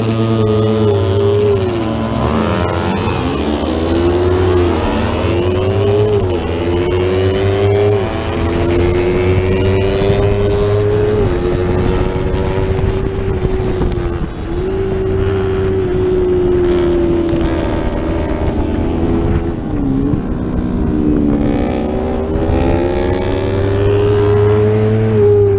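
Yamaha R25 249 cc parallel-twin racing engine at full race pace, heard from on board: it revs up through the gears, its pitch dropping sharply at each of several quick upshifts in the first dozen seconds, holds high revs, dips briefly as it is backed off about three-quarters of the way through, then climbs again near the end.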